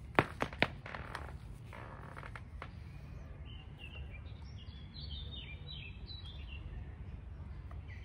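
Three sharp clicks in the first second, then a bird chirping a run of short, stepped notes from about three and a half seconds in, over a steady low background rumble.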